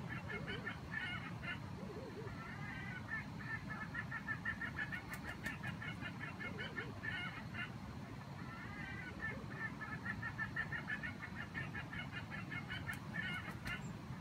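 Bird calls: a rapid, chattering run of chirps that goes on with a few short breaks, fairly faint.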